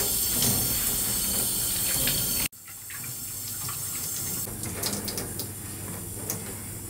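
Water running from a wall tap into a stainless steel washing trough as hands and feet are washed under it. About two and a half seconds in the sound cuts off suddenly and goes on quieter, with a few small knocks and splashes.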